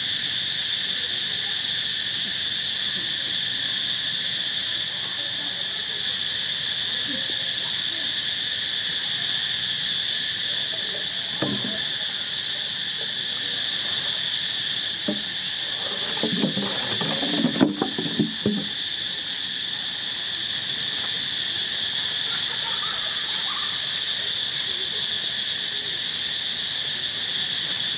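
Steady insect chorus droning in a few high pitched bands without a break. Brief lower sounds and a sharp click join it about two-thirds of the way through.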